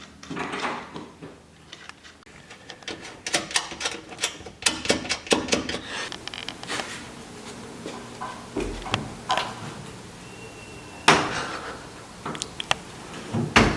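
Hand work on car tail-light bulbs and bulb holders: a quick run of small clicks and rattles, then scattered knocks, with one sharper knock near the end.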